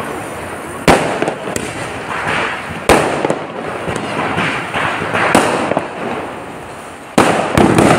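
Fireworks going off: sharp bangs about a second in, near three seconds, and twice in quick succession near the end, over a steady crackling hiss of burning fireworks.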